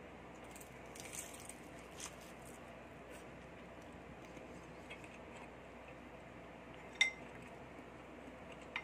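A metal spoon clinks once, sharp and ringing, against a ceramic bowl of dipping sauce about seven seconds in. Before it come a few faint light taps and scrapes of tableware, and a small click near the end, over a steady low hiss.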